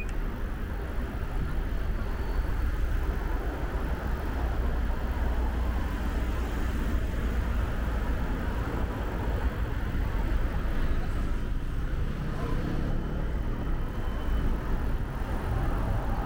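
Steady road traffic: cars passing, over a heavy low rumble.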